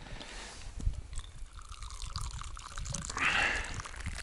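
Hot tea poured from a thermos into a cup, a liquid trickle and splash.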